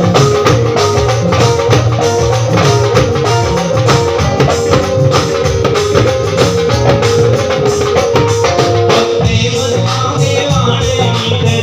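Live band playing loud amplified music through the PA speakers, with a steady drum beat and held melody notes; the mix changes about nine seconds in.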